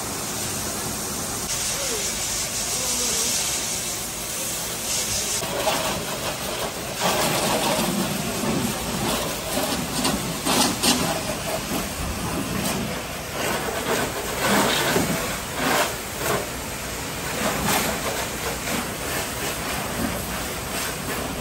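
Pressure-washer jet hissing as it sprays water over a car's body, swelling and fading as the lance is swept across the panels.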